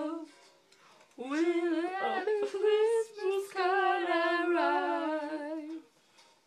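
A woman singing unaccompanied, without clear words: after a short pause, one long wavering vocal line from about a second in, ending about half a second before the end.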